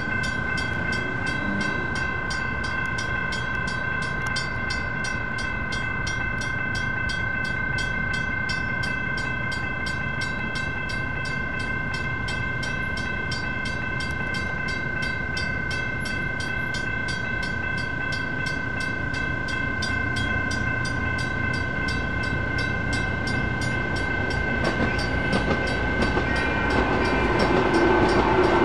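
Railroad crossing signal bells ringing continuously with quick, even strikes. Near the end a CAF light rail car approaches, adding a rising rumble and hum.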